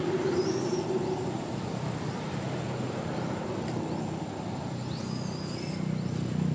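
Steady hum of a motor vehicle's engine running nearby, with a few brief high chirps about half a second in and again around five seconds in.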